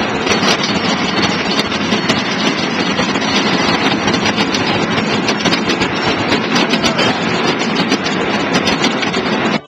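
Children's fairground ride with small green cars running: a loud, steady mechanical rumble with many small rattles and clicks, cutting off suddenly at the end.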